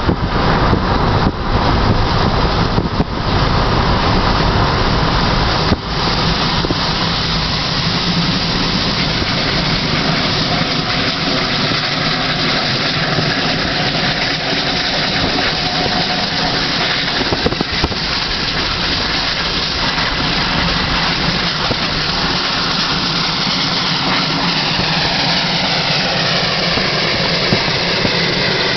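Car driving along a road, heard from inside with the window open: steady engine and tyre noise, uneven with wind on the microphone for the first few seconds. Near the end the noise takes on a whooshing sweep that falls in pitch.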